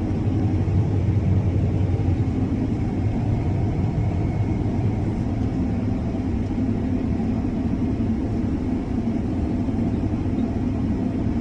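Combine harvester running steadily while cutting wheat: a constant low machine rumble with no change in pitch or load.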